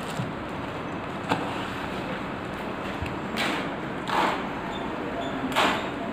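Clear plastic bag crinkling and rustling in a few short bursts as a phone screen is pulled out of it and handled, with a light click about a second in, over steady background hiss.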